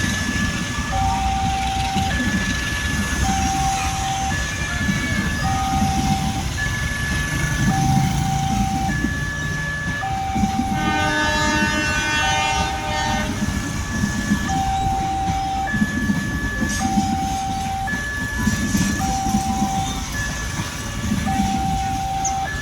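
Automatic level-crossing warning siren alternating between a low and a higher tone, each about a second long, over the rumble of a passing train. About eleven seconds in, the locomotive's horn sounds for about two seconds.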